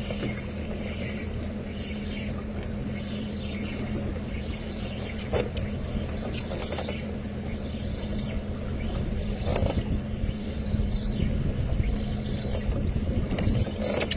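Outboard motor running steadily with a low hum, with a few brief knocks.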